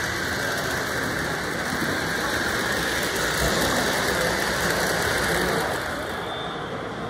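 Electric model trains running on the layout's track: a steady rumble of wheels and motors, dropping a little about six seconds in.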